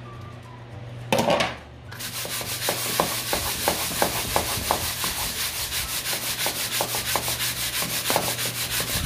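Aluminium baking tray shaken back and forth on a wooden table, granulated sugar and brigadeiro balls sliding and rasping in it in a steady rhythm of about three strokes a second, rolling the sweets in sugar with lime zest. About a second in, a brief louder rustle as the balls are tipped from the plastic plate into the sugar.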